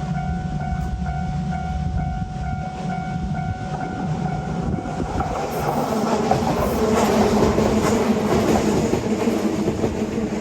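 Japanese level-crossing alarm ringing its rapid, evenly repeated electronic 'kan-kan' tone. From about halfway, a passing train's rumble and wheel clatter build up and drown the bell out.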